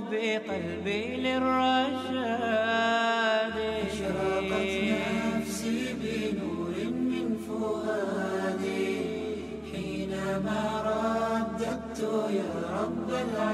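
Background devotional vocal music in the style of a nasheed: chanting voices with long, sliding held notes over a steady low drone.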